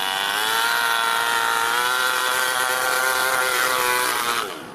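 Toyan FS-L200 two-cylinder four-stroke nitro engine in an RC crawler running flat out, a loud, high, steady buzzing note after a short rise in revs at the start. Near the end its pitch drops and it fades quickly as the car goes past.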